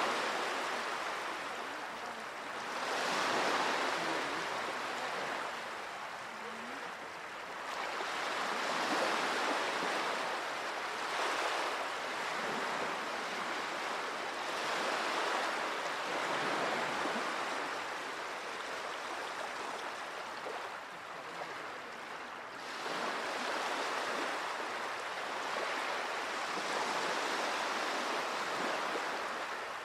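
Small sea waves washing onto a shore, the wash swelling and easing every few seconds.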